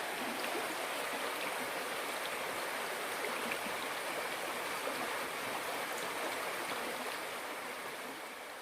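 Waterfall rushing: a steady wash of falling water that begins to fade near the end.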